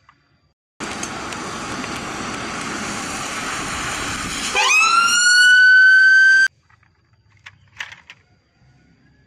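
A steady rush of traffic noise, then an ambulance siren winds up in pitch about halfway through and holds one steady high tone before cutting off suddenly. Faint clicks of plastic toys being handled follow.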